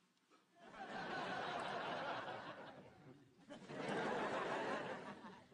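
Studio audience laughing in two waves, each swelling up and dying away over about two seconds.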